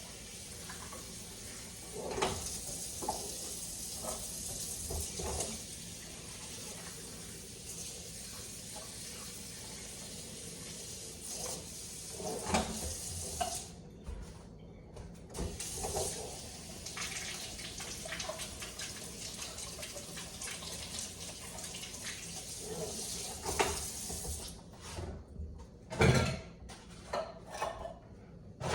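Kitchen tap running into a sink while empty tomato cans are rinsed out, with a few knocks of the cans. The water stops briefly about halfway through, runs again, then is shut off near the end, where there is more clattering.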